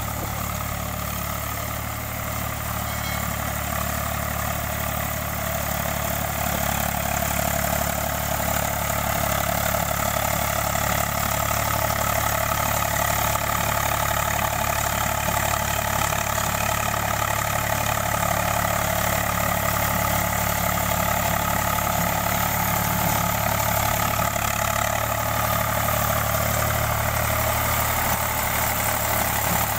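Eicher 485 tractor's three-cylinder diesel engine running steadily under load, pulling a rotavator through a wet paddy field. It grows louder over the first several seconds as the tractor draws nearer, then holds steady.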